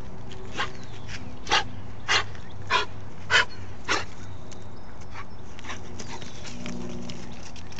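Dog giving six short, sharp yelps, evenly spaced about every half second over the first four seconds.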